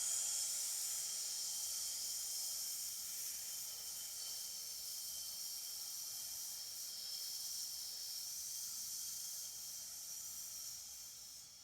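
A person exhaling one long, steady 'sssss' hiss through the teeth: the lung (metal) healing sound of the Taoist six healing sounds. It starts suddenly and fades away near the end.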